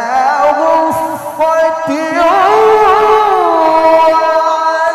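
A male Quran reciter in the melodic tilawah style, drawing out long ornamented notes on held vowels with wavering runs, two brief breaks early in the phrase and a slide down in pitch past the middle.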